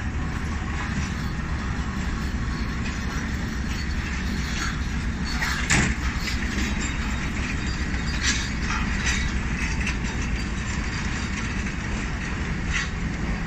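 Passenger coaches of the departing Tezgam express rolling past along the platform: a steady rumble with a few sharp clanks, the loudest about six seconds in.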